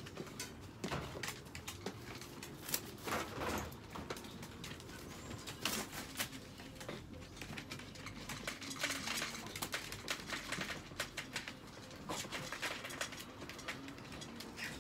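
Wire dog crates clicking and rattling as they are handled, with small dogs, chihuahuas, whimpering.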